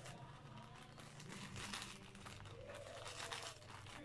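Black plastic shipping mailer crinkling faintly as fingers pick at its edge to open it.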